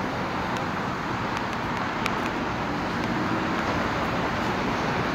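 Steady city street traffic: cars driving past on a busy multi-lane road, heard from the sidewalk, with a few faint clicks.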